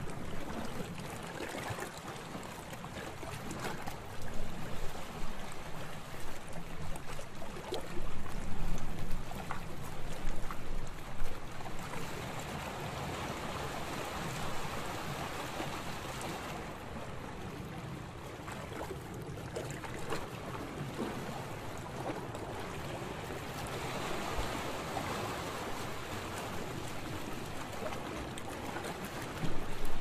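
Open-sea water sloshing and lapping in choppy waves. There are bursts of louder splashing in the first third and again near the end, and slower swells of rushing water in between.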